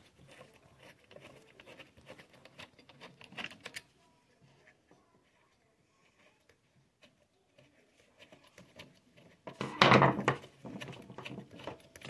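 Faint clicks and scrapes of a small flathead screwdriver working the screws out of a metal detector's plastic control box housing, then a pause, with a brief louder sound near the end.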